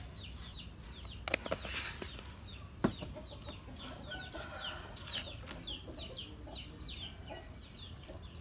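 Birds chirping in the background: a long run of short, high, falling calls, several a second. A few light clicks and a sharper knock come about three seconds in.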